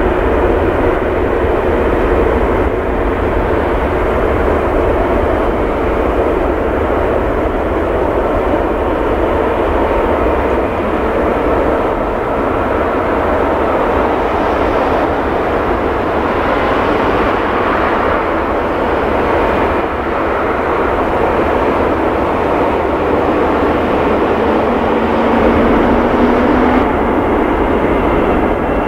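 Twin jet engines of a Boeing 777-200ER airliner running at taxi power: a steady rumble and hiss as the jet taxis ahead of take-off.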